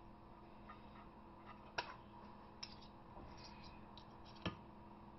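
Faint, scattered clicks and taps of a metal fork against a glass baking dish while a thick topping is spread, with sharper clinks about two seconds in and again near the end, over a faint steady hum.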